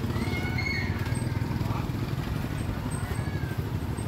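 Small motorbike engine running close by in a busy market lane, over faint voices.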